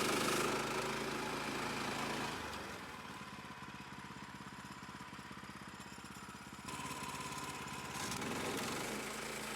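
Portable bandsaw mill's gas engine running steadily at idle, settling lower about two seconds in and picking up again near the end.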